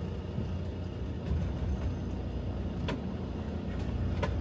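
Steady low rumble of a motor vehicle on the move, with two short sharp clicks or rattles near the end.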